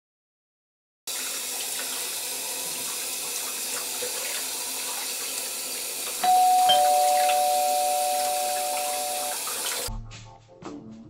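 A tap runs steadily into a sink. About six seconds in, a two-note doorbell chime rings out, the second note lower than the first, and the two ring on together and fade. The water cuts off near the end and music with a beat takes over.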